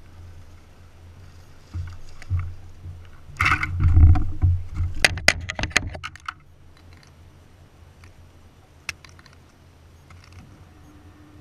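A hooked largemouth bass being landed on a bass boat's deck: a few thumps, then a loud splashing burst as the fish comes aboard, followed by a quick run of sharp slaps or clicks. A low hum runs underneath and stops about six seconds in, after which only faint handling sounds remain.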